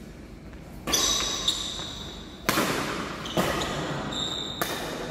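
Badminton doubles rally: sharp racket strokes on the shuttlecock about once a second, five in all, each followed by a brief echo, with short high squeaks from court shoes between them.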